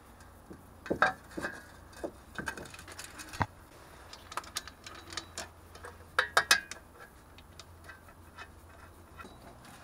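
Irregular metallic clicks, clinks and knocks of hand tools and steel parts being handled while a car's rear wheel hub assembly is put back together, with a sharper cluster of clinks a little past halfway.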